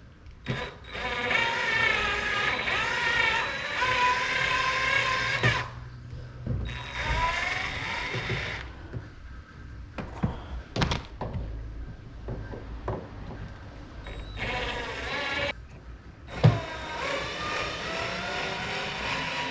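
Cordless drill/driver backing out screws: the motor whines in several runs of one to five seconds, its pitch rising and falling with the trigger, with a few sharp clicks between runs.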